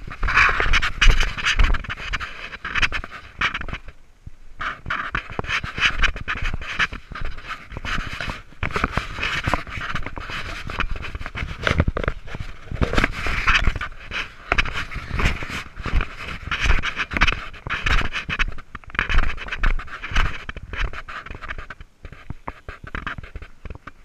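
A person breathing hard and panting while scrambling over a steep rocky slope through scrub, close to the microphone. Scuffing footsteps and brush scraping against clothing run through the breathing.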